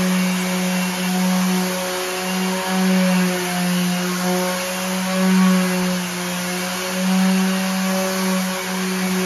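Handheld electric sander running steadily on a wooden countertop, its motor hum swelling and easing a little as it is pressed and moved across the wood.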